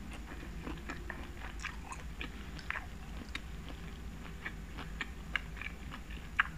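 Close-miked chewing of tteokbokki rice cakes in sauce: a run of small, wet mouth clicks and smacks, with a sharper click about five and a half seconds in and another near the end.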